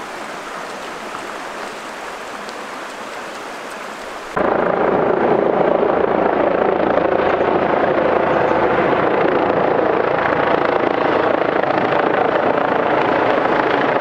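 A shallow river rushing over a gravel bed, then, after a cut about four seconds in, the louder, steady drone of a helicopter flying overhead.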